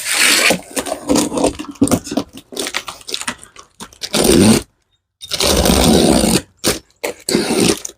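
A heavy cardboard box being handled and shifted, making a series of scraping and rasping noises, with the longest stretches about four and five to six seconds in.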